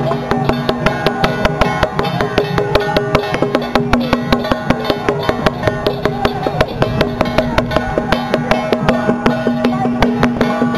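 Traditional temple-procession music: a fast, even percussion beat of about four or five strokes a second, with a held drone and a wavering melody over it.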